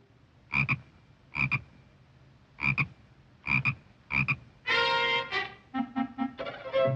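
Five short croaks, irregularly spaced about a second apart, with quiet between them. Cartoon music comes in near the end.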